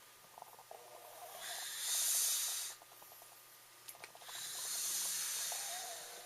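A sleeping person snoring: two long, hissing breaths about three seconds apart, each lasting about a second and a half.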